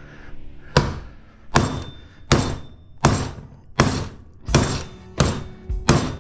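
Machete chopping into an electric motor stator's copper windings, a steady series of about eight heavy strikes, roughly one every three-quarters of a second, each ringing briefly.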